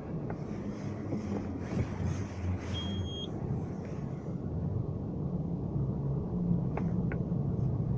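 Steady low rumble of a moving JAC S5 heard from inside the cabin: engine, road and winter-tyre noise. A short high beep sounds once, about three seconds in.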